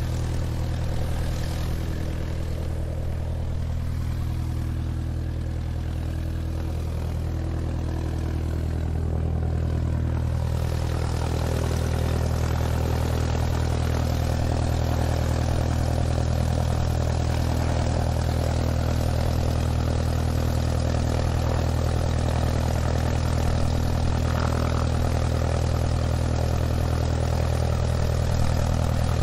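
Airplane taxiing, its engines running steadily with a low hum that grows a little louder and hissier about ten seconds in.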